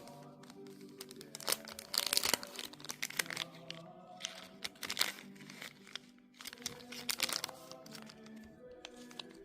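Packaging crinkling and rustling in short bursts, heaviest a couple of seconds in, over steady background music.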